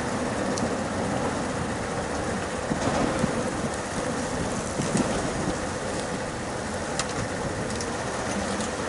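Steady outdoor noise of wind and traffic with a constant low hum and a few faint clicks.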